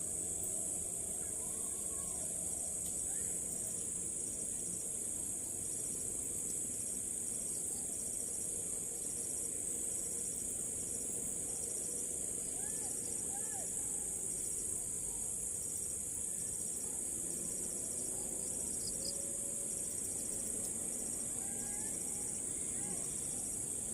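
A steady, high-pitched chorus of insects such as crickets, with a second insect trilling in short repeated pulses and a few faint short chirps.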